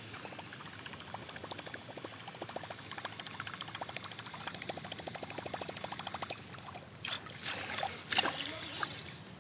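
A baitcasting reel being cranked steadily, with fast, even ticking of about ten a second as a topwater lure is retrieved. About seven seconds in, the cranking stops and a few louder splashy water sounds follow.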